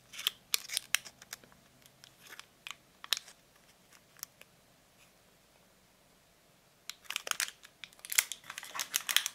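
Plastic accessory packaging being handled, crinkling and clicking in two spells with a quiet pause of a few seconds between them; the second spell is denser.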